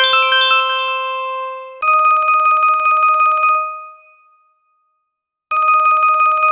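LG VX6100 ringtones played through a Samsung Swift soundfont: the end of a melodic tune over a held note, then a phone-ring style tone, one rapidly pulsing pitch, sounding in two rings about two seconds long with a short silence between.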